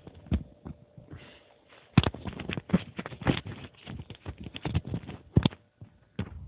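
Stomach gurgling after drinking water: a few scattered pops, then from about two seconds in a quick, dense run of bubbly pops and clicks for several seconds.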